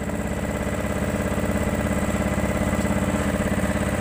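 Small single-cylinder-style boat engine on a Filipino bangka running steadily, with an even, rapid pulse.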